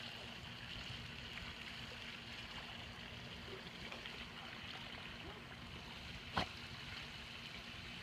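Pool waterfall spilling steadily from a raised spa wall into the pool, a continuous splashing hiss with the dog's rear in the falling water, and a single brief click about six seconds in.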